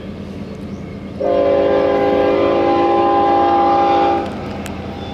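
Air horn of a GE ES44AC diesel locomotive sounding one long blast of about three seconds, a chord of several steady notes, starting about a second in: a warning blown at a whistle post for the grade crossing ahead. Under it runs the steady low rumble of the approaching train.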